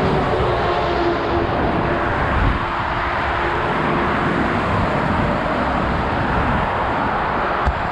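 Steady roar of fast motorway traffic, tyres and engines of passing cars and lorries. A passing vehicle's engine tone sinks in pitch over the first couple of seconds, and there is a brief knock near the end.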